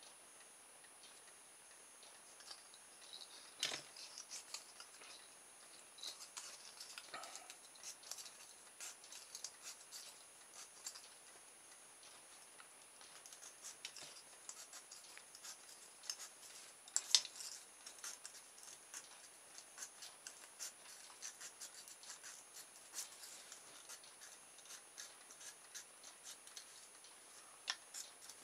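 Faint scattered clicks and scratches of fingers handling a small plastic motor armature and its coil wire, with the sharpest click about 17 seconds in.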